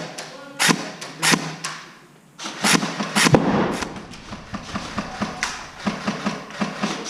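Airsoft guns firing in short strings of sharp cracks inside a building, the loudest crack about halfway through, followed by lighter, quicker ticks at about two to three a second.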